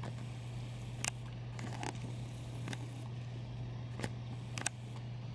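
A steady low hum with four faint, sharp clicks spaced about a second apart, and a short soft rustle between the first two.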